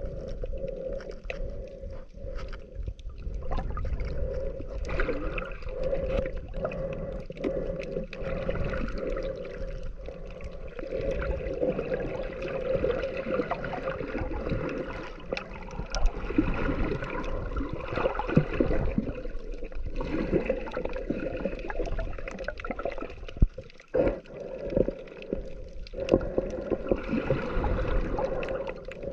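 Muffled underwater sound picked up by a camera held below the surface: water sloshing and gurgling around it over a steady low hum. Now and then there is a sharp knock.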